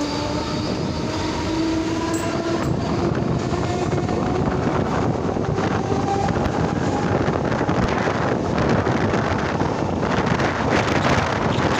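Mumbai suburban electric local train (EMU) pulling away, heard from inside the coach: the traction motors whine, rising in pitch over the first two seconds or so, then give way to a growing rumble and rush of noise through the open doorway as the train gathers speed.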